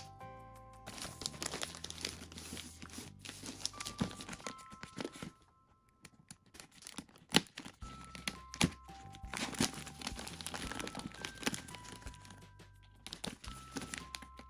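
Plastic bag wrapping crinkling, tearing and being snipped with scissors as it is cut open and pulled back, with a brief lull a little before the middle and a sharp snip just past it. Soft background music with sustained notes plays underneath.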